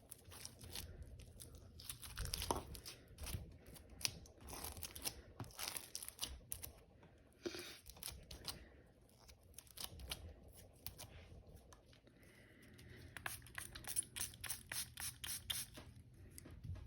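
Hands stretching and pulling a sticky slime, giving irregular crackling and tearing sounds in busy stretches with short pauses; the slime is still too sticky and is being worked with activator.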